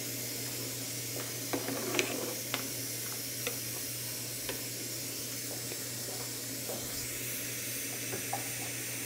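A metal spoon stirring liquid pork-and-guaje sauce in a cooking pot, giving a few light clinks and scrapes in the first few seconds, over a steady hiss.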